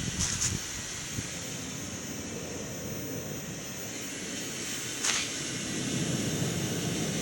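Steady background noise with a low rumble that swells a little near the end, and one short sharp click about five seconds in.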